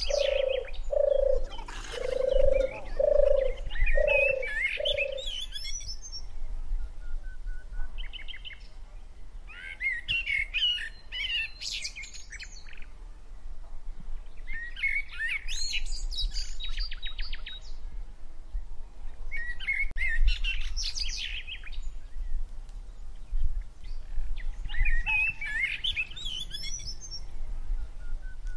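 Small birds chirping and twittering in short spells every few seconds, with a low hoot repeated six times over the first five seconds.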